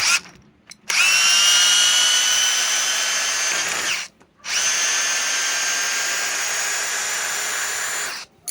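Metabo SB 18 LTX-3 BL Q I cordless brushless hammer drill running: a brief blip, then two steady runs of about three seconds each with a short pause between, a high motor whine throughout.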